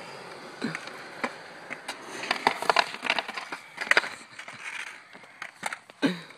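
Skateboard wheels rolling on concrete, then a rapid cluster of sharp wooden clacks and slaps from about two to four seconds in as the board is popped and comes down loose on the concrete in a bailed trick. One more sharp clack comes near the end.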